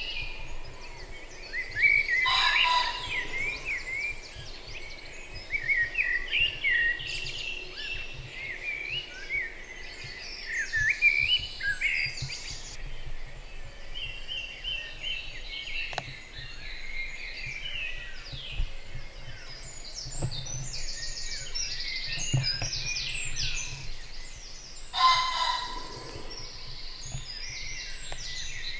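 Dawn chorus of many songbirds calling over one another in a springtime woodland. Two louder calls stand out above it, about two seconds in and again near the end.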